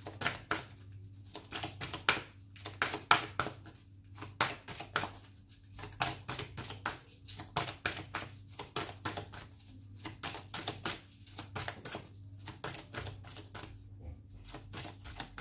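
A deck of divination cards being shuffled by hand: a rapid, uneven run of papery card clicks and slaps, with a faint steady hum underneath.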